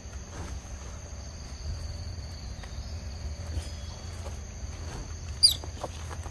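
Insects calling steadily as two high, unbroken tones over a low rumble. About five seconds in, a single short, high-pitched chirp rises quickly and stands out loudest.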